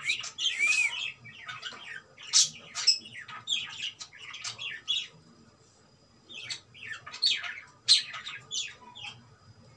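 Pet cockatiel chirping: a quick string of short, high calls, with a brief pause about halfway through.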